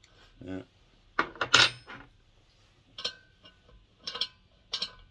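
Metal spanners clinking and knocking against each other and on metal, five or six sharp clinks with a short ring, the loudest pair about a second and a half in.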